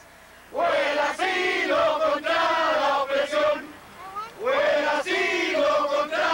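A small crowd of protesters chanting a slogan in unison: two chanted phrases of about three seconds each, with a short break between them.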